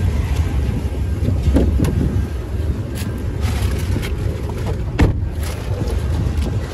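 Freight train of hooded steel coil cars rolling past at a grade crossing: a steady low rumble, with a few sharp clicks and knocks, the loudest about five seconds in.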